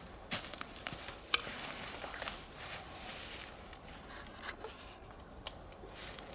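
Footsteps crunching and rustling through dry leaf litter and twigs on a forest floor, in an irregular string of short crunches, with one sharp click about a second in.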